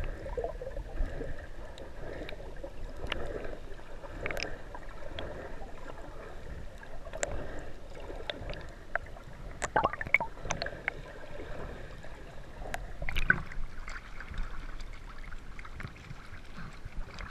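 Muffled underwater water noise: a steady low rumble and gurgle, broken by scattered sharp clicks and crackles, the strongest clusters about ten seconds in and again about thirteen seconds in.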